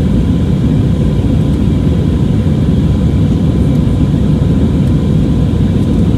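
Steady cabin noise of an Airbus A320neo climbing after takeoff: a dense low rumble of airflow and its CFM LEAP-1A engines, with a faint steady tone above it.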